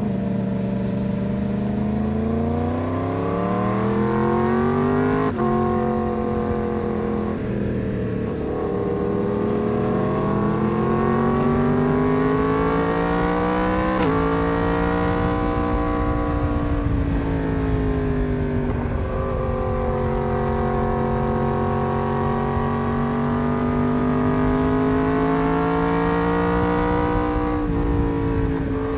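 Yamaha MT-10's crossplane inline-four engine heard from the rider's seat, its pitch rising and falling in long sweeps as it accelerates and eases off, with several sudden steps in pitch at gear changes. A steady low rush of wind and road noise sits under the engine.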